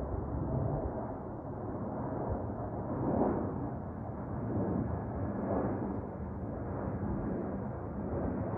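Jet airliner flying overhead: a steady engine rumble that swells and eases in slow waves.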